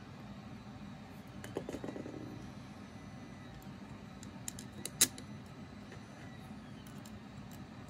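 Light metallic clicks and a short rattle of small screws and a hex driver being handled while screwing a stepper motor to a 3D-printed part, with one sharp click about five seconds in, over a steady low hum.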